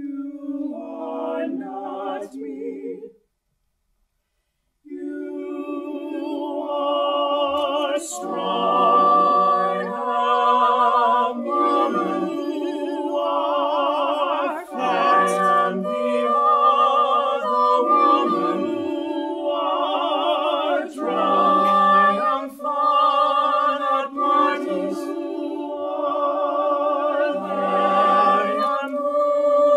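Unaccompanied mixed-voice vocal ensemble of about eight singers. A short sung phrase is followed by a pause of about two seconds, then the whole group sings together in several parts with vibrato.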